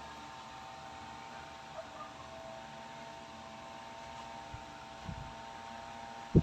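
Steady electrical hum with a thin, even high whine over it, and a few low thumps, the loudest a short knock right at the end.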